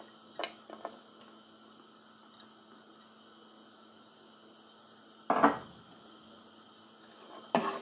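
Quiet steady hum of a kitchen, with a light click about half a second in and one sharp knock of kitchenware, dish or utensil against the frying pan or counter, about five seconds in.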